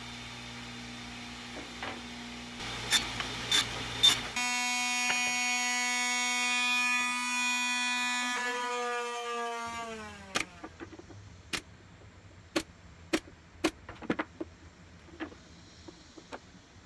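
A low steady motor hum with a few sharp knocks, then an electric palm sander starts about four seconds in and runs with a steady whine. Near the ten-second mark it is switched off and winds down, falling in pitch, and a string of sharp clicks and taps follows.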